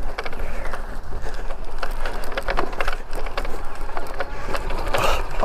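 E-bike rolling over bumpy grass and a dirt path. Tyre noise and a steady low rumble run under many small clicks and rattles from the bike as it jolts over the rough ground.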